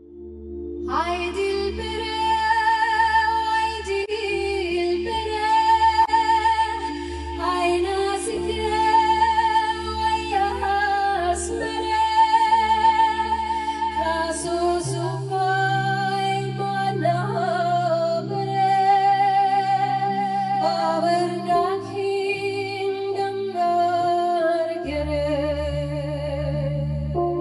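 A woman sings a Kurdish song in a slow, wavering line with strong vibrato. Beneath her voice runs a sustained low accompaniment whose held bass notes change every several seconds.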